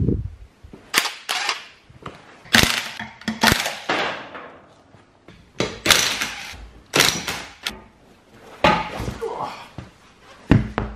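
Makita cordless impact wrench hammering in a series of short bursts as it undoes a car's wheel bolts.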